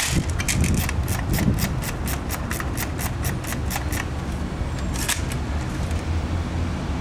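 A fast, even run of sharp plastic clicks, about five a second, lasting nearly four seconds, followed by a few single clicks, from a polycarbonate high-capacity airsoft magazine being handled.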